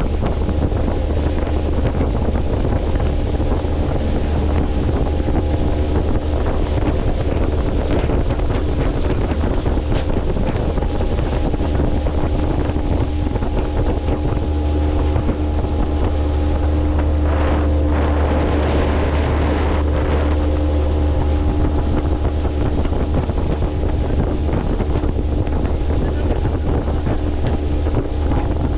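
Boat motor running steadily under way, with wind buffeting the microphone.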